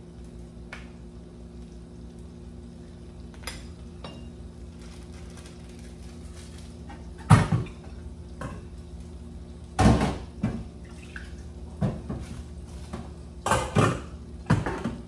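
Several short clatters of kitchenware in a stainless-steel sink, the loudest about seven and ten seconds in and a cluster near the end, over a steady low hum.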